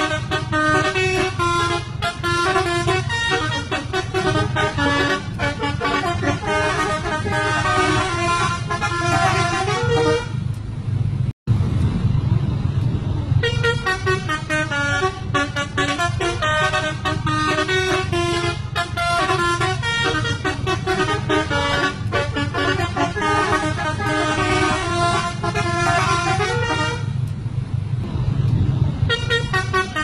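Two coaches' telolet horns, multi-note musical air horns, playing quick melodies of stepped tones back and forth over a steady low rumble. The horn tunes pause briefly about a third of the way in, with a momentary cut-out of all sound, and again near the end.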